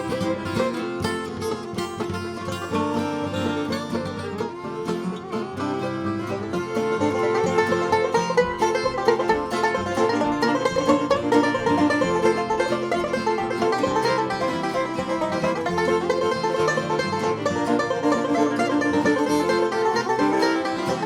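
Bluegrass string band playing an instrumental break between sung verses, plucked strings with banjo to the fore. The playing gets louder about seven seconds in.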